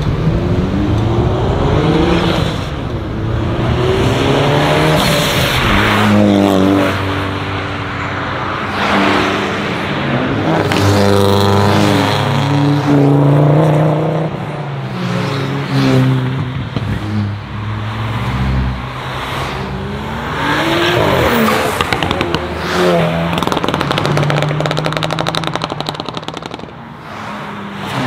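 Modified cars accelerating hard away one after another. Each engine revs up in rising sweeps that break and climb again through the gear changes as the car pulls past.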